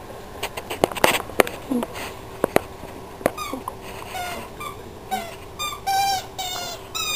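A dog's red squeaky toy being chewed, giving a run of short high squeaks that start a little before halfway and come every half second or so. A few sharp clicks come before them.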